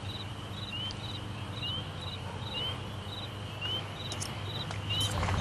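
Night ambience of crickets: short, high rising chirps repeating about once a second, each with a brief pulsed trill, over a steady low hum.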